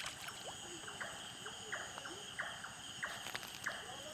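Night chorus of frogs calling over a steady drone of insects: short croaks about twice a second, with a few sharp clicks a little after three seconds in.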